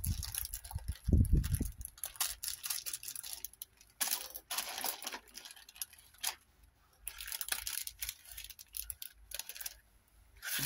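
Rustling and crinkling of a plastic packet of paper flowers being handled, in irregular bursts, with a couple of soft knocks near the start.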